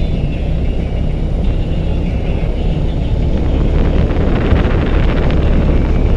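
BMW RT touring motorcycle running along a gravel road: steady engine drone under tyre and wind noise, turning rougher and rattly about four to five seconds in.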